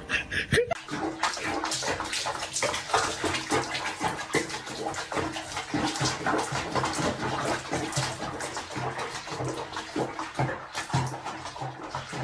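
Water splashing and sloshing in a filled basin as a cat moves about in it, starting about a second in.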